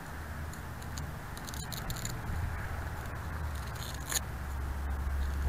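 Close handling noise from a T-REX 600 RC helicopter's frame being worked on by hand, with light scrapes, clicks and rattles over a steady low rumble on the small camera's microphone.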